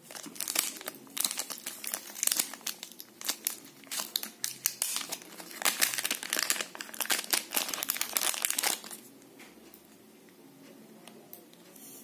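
Small clear plastic retail bag crinkling and rustling as it is handled and pulled open. The crinkling stops about nine seconds in.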